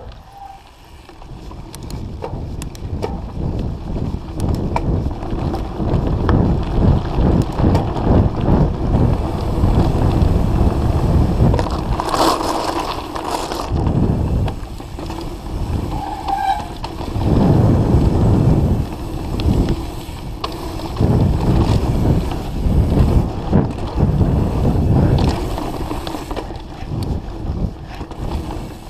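Mountain bike riding fast down a dirt singletrack: tyres rolling and skidding on dirt, the bike rattling over roots and bumps, and wind buffeting the bike-mounted camera's microphone. A brief squeak comes about halfway through.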